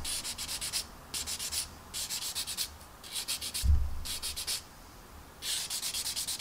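A sanding stick scratching along the centre seam line of a clear plastic model canopy to sand the seam away. It comes in short bursts of quick back-and-forth strokes, about one burst a second, with a soft low bump about halfway through.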